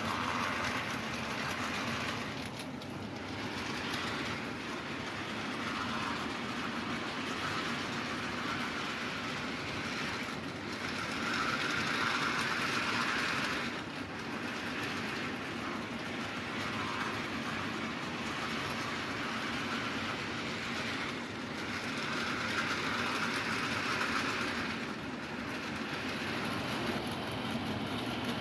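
Tyco Coast to Coast Diesel Flyer model train running on sectional Bachmann track: a steady motor whir and wheel rattle that swells and fades about every ten seconds.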